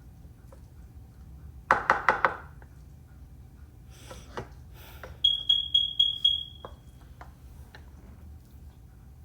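A metal spoon tapped repeatedly against metal cookware while food is spooned into the dish: a quick run of dull knocks about two seconds in, then around five sharp taps, about four a second, each leaving a high ringing tone that fades.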